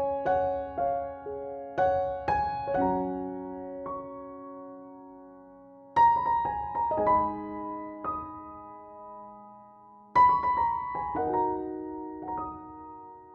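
Background piano music: a slow run of struck notes and chords that ring out and fade, with louder chords about six and ten seconds in.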